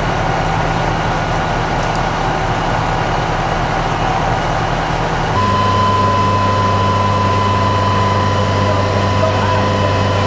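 Fire truck engine running steadily. About five seconds in it changes to a louder, lower drone with a steady whine.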